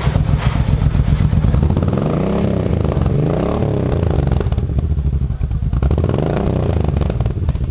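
Suzuki Intruder motorcycle engine idling through an aftermarket Scorpion sport exhaust, blipped three times so that the note rises and falls back to idle.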